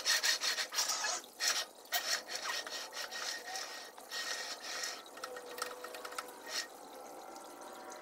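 Irregular scraping and rasping in quick, uneven strokes, dying away about six and a half seconds in. A faint trickle of water is left after it.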